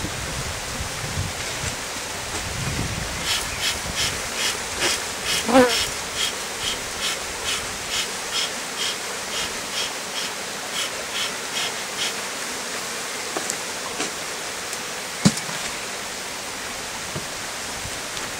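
Bee smoker's bellows pumped in a run of short airy puffs, about two a second for some eight seconds, smoking the colony over the open hive frames. A brief rising buzz comes about a third of the way through, and a single sharp knock near the end.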